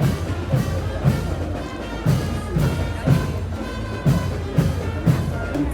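Parade music with a heavy drum striking in groups of three, about two beats a second, with a short pause between groups.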